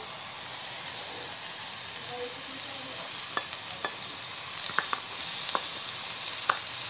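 Onions sizzling steadily in oil in a grill pan. From about three seconds in, sharp ticks and crackles come as sliced red bell pepper and green chili are tipped into the hot pan.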